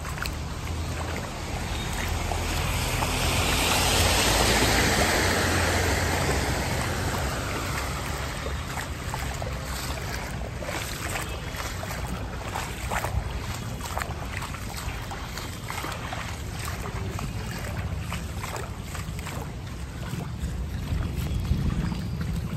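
Floodwater sloshing and splashing along a waterlogged street, over a low steady rumble. The rush swells and fades about three to six seconds in, and scattered small splashes and ticks follow.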